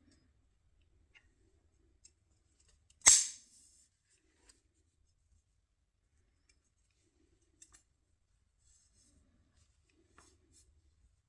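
A single sharp click about three seconds in, with a brief ring-out, among faint scattered ticks and taps.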